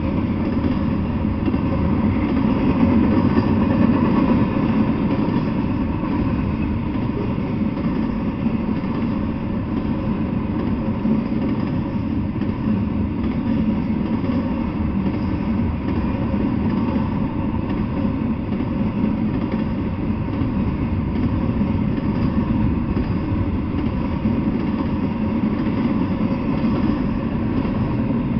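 Freight train cars rolling past at speed: a steady, unbroken rumble of steel wheels on the rails, heaviest in the low end. It is heard through a trail camera's built-in microphone.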